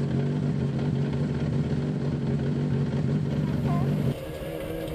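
A rally car's engine idling steadily close by. About four seconds in, it gives way to a quieter, lower steady engine hum.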